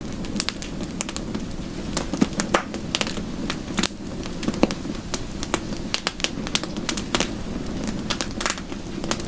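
Wood fire crackling: irregular sharp pops and snaps, several a second, over a steady low rumble of the burning fire.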